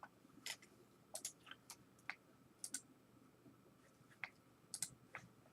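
Faint, irregular clicking of a computer keyboard and mouse being used to edit text, about a dozen separate clicks.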